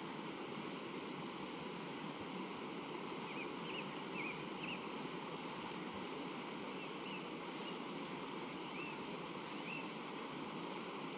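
Steady rush of a river flowing, with a few short bird chirps scattered through it.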